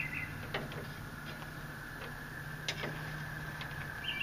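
A few light knocks and clicks as a long-handled rake is handled beside the tipped-up go-kart, with a small bird chirping at the start and again near the end over a steady low hum.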